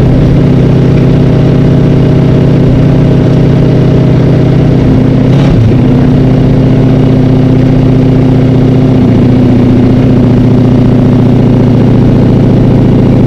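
Race car engine heard loud from inside the cockpit, running at a steady, even speed on the oval. There is a brief knock about five and a half seconds in.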